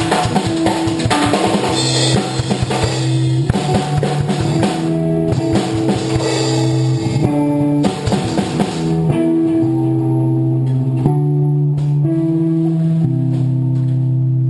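Background music: a band with drum kit and guitar, the drums thinning out about two-thirds of the way through.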